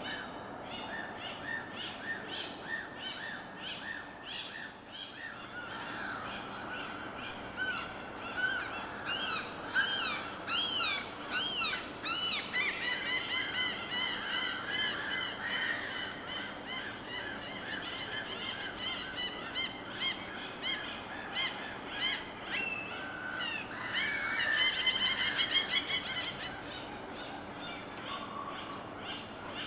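Many birds chirping and calling in quick, repeated high notes, busiest from about eight seconds in, over a steady wash of water.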